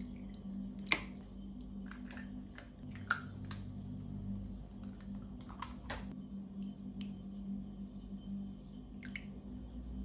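Eggs being cracked and dropped into a bowl of milk: several sharp cracks and taps a second or two apart, the strongest about a second in, over a steady low hum.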